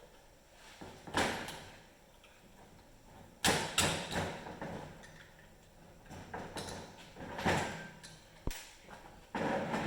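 Wrenches and metal engine parts being handled on a bench: a handful of separate clunks and knocks a few seconds apart, each with a short ring.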